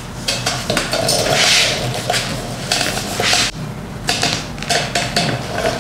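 Duct tape being pulled off the roll and pressed by hand onto a plastic kayak hull: two long tearing rasps, about a second in and again around three seconds, among light knocks and rubbing against the hull.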